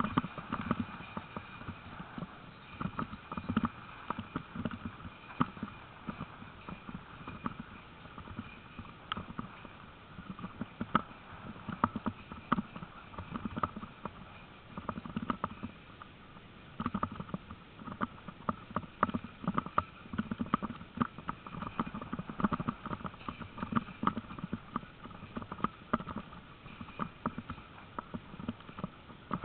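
A dog team running in harness along a rough grass trail: quick, irregular clatter and knocks of footfalls and towed gear bumping over the ground, with a faint steady high tone underneath.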